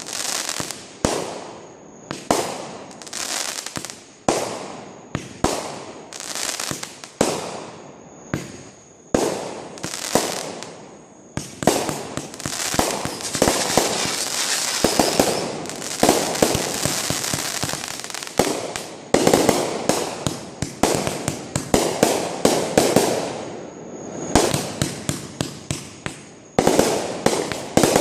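Fireworks going off in quick succession: sharp bangs, each trailing away, with a dense stretch of continuous crackling around the middle, then rapid strings of bangs again toward the end.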